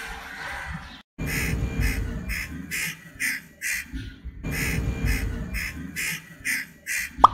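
Crow chick giving short, harsh begging calls in quick series, about two to three a second, as it is hand-fed. The calls start about a second in, pause briefly midway, and a sharp click comes near the end.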